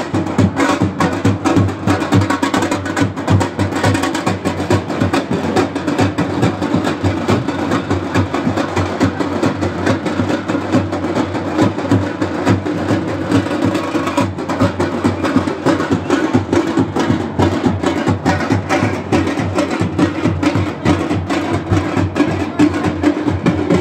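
Music driven by fast, dense drumming, the strikes coming many times a second without a break.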